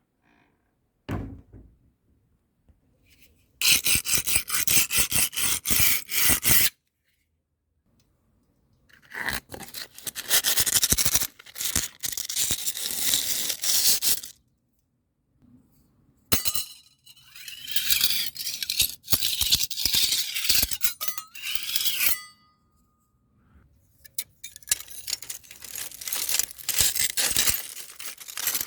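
Harsh scraping, in four separate bursts of a few seconds each with short silences between them. The third burst has a squeal that slides up and down in pitch.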